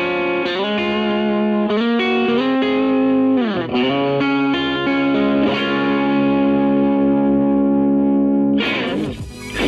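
Telecaster electric guitar played through a small tube-hybrid amp and 2x12 cabinet, with an overdriven tone. It plays a lead phrase with string bends, then holds sustained notes, and a new passage starts abruptly near the end.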